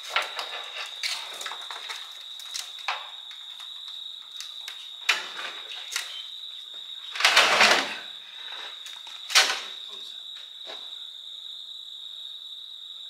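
Crickets chirping steadily throughout, with scattered clanks and knocks of batteries and tools being handled in a truck's battery box. The loudest is a rattling clatter about seven seconds in that lasts under a second, followed by a sharp knock a couple of seconds later.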